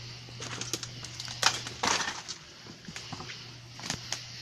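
Irregular knocks, scuffs and rustles from a handheld camera being moved about and handled, with two louder scrapes about one and a half to two seconds in, over a steady low hum.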